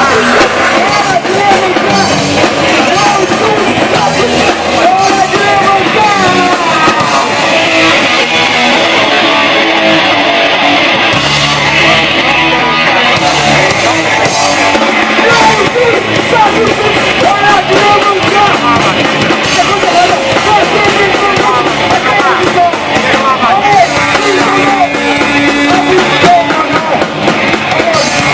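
Old-school punk rock band playing live at full volume, with guitar and vocals in a dense, continuous wall of sound.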